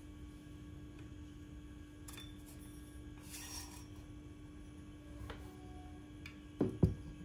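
Hollow metal tubes of a flat-pack rack being handled and fitted together: a brief scrape about three seconds in, a small click with a short ring, and two sharp knocks close together near the end. A steady low hum runs underneath.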